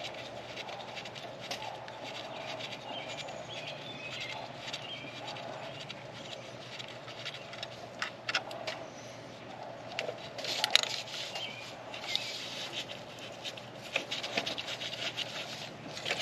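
Scattered sharp clicks and rattles of plastic electrical connectors and wiring harness being handled and plugged onto a truck alternator, coming in small clusters, with birds chirping faintly in the background.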